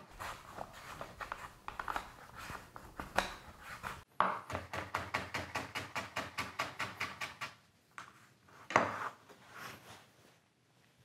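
Butternut squash being sliced on a handheld mandoline, a run of uneven strokes. Then a chef's knife chopping squash slices on a cutting board in a fast, even rhythm of about eight strokes a second, followed by a single thump.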